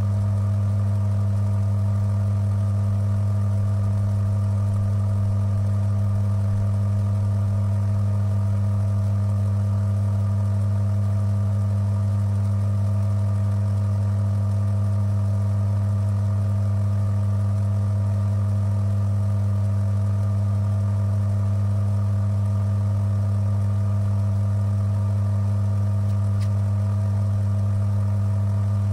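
Electric motor of a bench-top Timken friction tester running steadily, turning the brass test roller with no load during its break-in; a constant low hum with a few higher steady tones above it.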